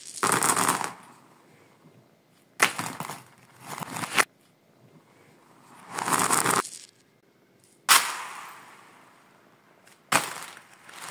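Handfuls of glass egg-shaped stones and small beads clattering and skittering across a laminate floor, played backwards. About six separate bursts of clatter a second or two apart, some swelling up to a sudden stop.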